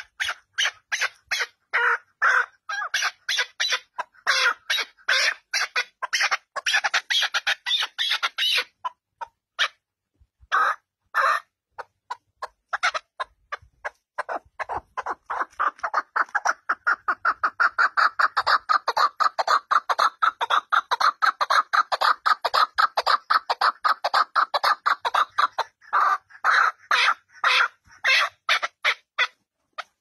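Chukar partridge calling: a long run of short, sharp notes, a few a second. About nine seconds in the run breaks off into a few scattered notes, then picks up again at around fourteen seconds as a faster, unbroken series.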